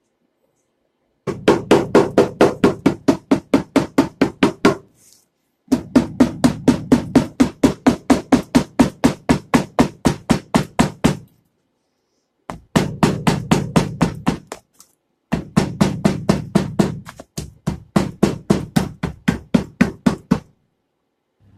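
Hammer striking metal in quick, regular blows, about five or six a second, in four runs with short pauses between them; each blow rings briefly.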